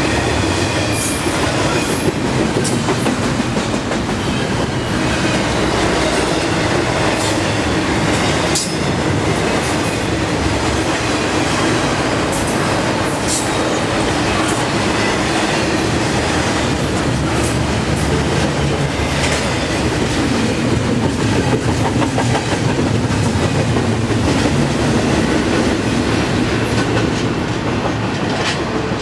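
Long CN intermodal freight train of well cars rolling past at about 45 mph. Its steel wheels make a steady rumble on the rails, with irregular sharp clicks and clacks. It eases off slightly near the end.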